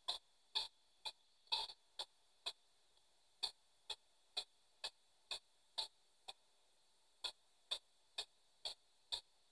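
P-SB7 spirit box sweeping through radio frequencies, played through a small external speaker: short, faint blips of radio sound about twice a second, each cut off by silence as the box jumps to the next frequency.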